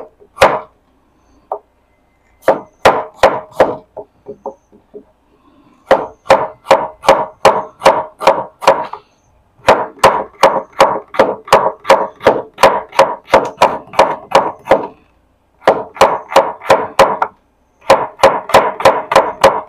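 Cleaver chopping shallots on a wooden cutting board: quick runs of sharp knocks, about four a second, broken by short pauses.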